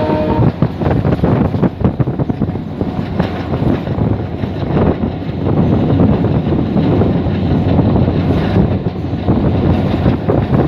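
Steady rumble of a moving train heard from on board, wheels running on the rails with wind noise on the microphone. A train horn's held note cuts off about half a second in.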